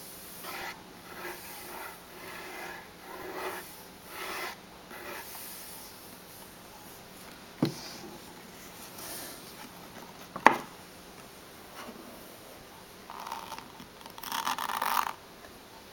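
Long fingernails rubbing and scratching over the cover of a cardboard book-shaped stash box in short repeated strokes, with two sharp knocks of the box on a wooden table, the second louder. Near the end, a louder burst of nails scratching along the box's faux page edges.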